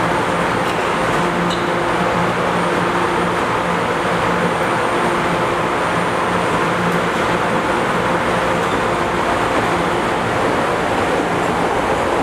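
CTA Morrison-Knudsen 3200-series subway train standing at an underground platform, giving off a steady hum with a low tone. It starts to move off near the end.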